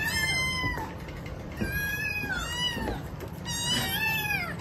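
Cat meowing: three drawn-out, high-pitched meows about a second apart, each falling in pitch at its end, as cats are being fed.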